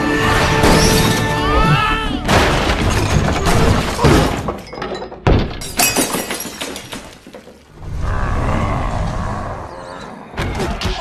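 Animated action-scene soundtrack: music under a run of crashes and smashing, with sharp hits about two, four and six seconds in. The music drops back near the middle and returns toward the end.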